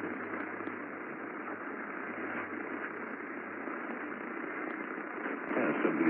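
AM radio reception on 740 AM: a steady static hiss with only faint broadcast audio beneath it. Near the end, louder broadcast speech comes in.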